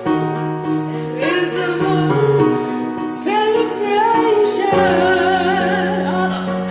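A woman singing a slow ballad over a karaoke backing track, her voice wavering over held accompaniment notes.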